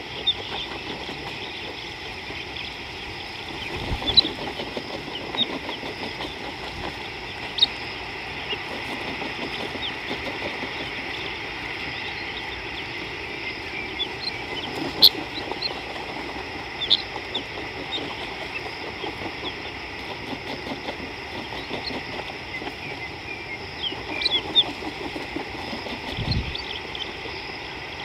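Bush ambience: a steady background hum with short, high bird chirps scattered all through, and a dull low thump about four seconds in and again near the end.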